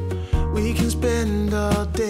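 Background music: a pop song with a steady bass line and held melody notes, which briefly drops out about a quarter second in.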